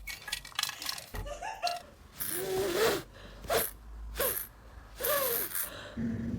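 Several short vocal sounds with bending pitch, mixed with scattered clicks and rustling.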